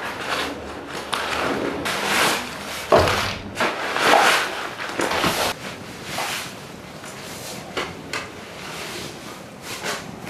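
Rustling and rummaging in a nylon backpack as gear is unpacked: irregular scrapes and rustles of fabric and straps, with a sharp knock about three seconds in.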